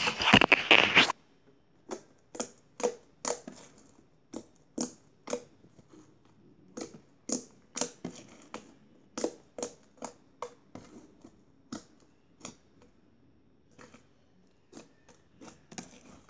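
Homemade purple glitter slime with foam beads being poked and squished by fingers, giving a string of short crackling pops and clicks at irregular spacing. A loud rustle of handling noise fills the first second.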